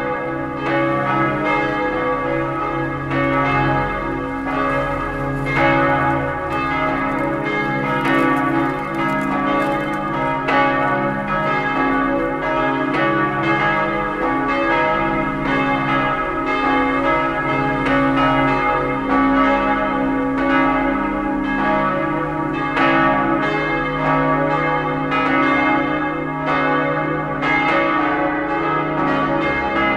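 Peal of church bells ringing together in a continuous, overlapping run of strokes, the five-bell ring tuned to D♭, E♭, G♭, A♭ and B♭ (three bells cast by Otto of Bremen in 1954, one by Perner of Passau in 1992, one by the Klaus brothers in 1930).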